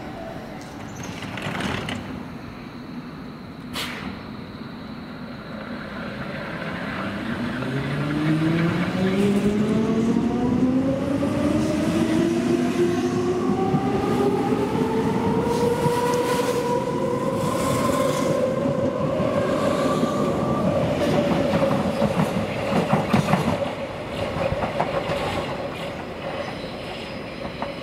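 Hamburg S-Bahn electric train pulling away, its traction motors giving a whine that climbs steadily in pitch as it accelerates past, with wheel clatter over the rails. It fades out near the end.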